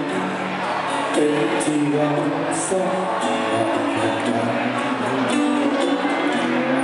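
Live band playing a song on a concert stage: steady melody lines over guitar and hand percussion.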